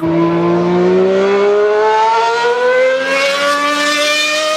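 Ferrari Formula One car's V12 engine at high revs, its pitch rising steadily as the car accelerates along the track.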